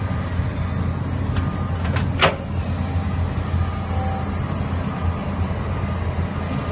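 Komatsu bulldozer's diesel engine running steadily with a low hum, with one brief sharp sound a little over two seconds in.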